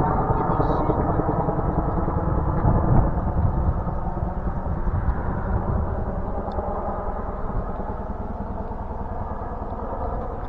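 Boeing CH-47 Chinook helicopter flying past, its rotor and engine drone steady and then slowly fading as it moves away.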